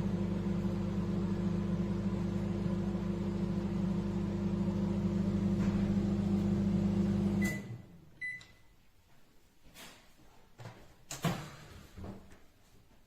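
Candy Smart CMG2071DS microwave oven running with a steady low hum that stops about seven and a half seconds in, as the cycle ends. Two short beeps follow, then a few light clicks and knocks.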